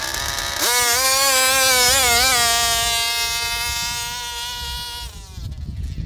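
Gasoline-powered large-scale RC car's two-stroke engine going to full throttle about half a second in with a high-pitched buzzing scream. The pitch holds nearly steady, wavering briefly twice, as the car makes a timed speed run. It fades as the car pulls away and drops off about five seconds in.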